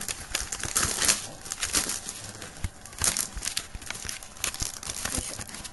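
Plastic fork stirring and scraping a crumbly powder-and-water candy mix in a plastic tray, a run of irregular scratchy, rustling strokes. It is the dough for the rice ball in a Popin' Cookin' kit, being mixed until no dry powder is left.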